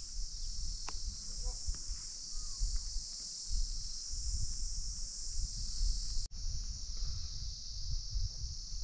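Steady, high-pitched insect chorus filling the air, over an uneven low rumble; the sound drops out for an instant about six seconds in.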